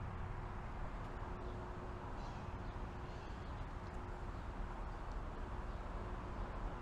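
Steady outdoor street ambience: a low, even hum of road traffic, with a few faint bird chirps about two to three seconds in.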